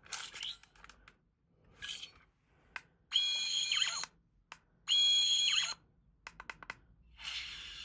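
Sonic screwdriver toy: its button clicking several times, then two electronic sonic sounds from its small speaker, each about a second long, steady high tones that slide down as they cut off. A hissing sound starts near the end.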